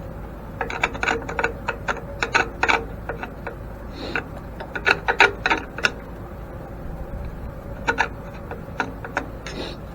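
Irregular clicks, clinks and light knocks from hands and tools working on the antique grain mill's parts. They come in a busy run for several seconds, stop, then return in a shorter cluster near the end.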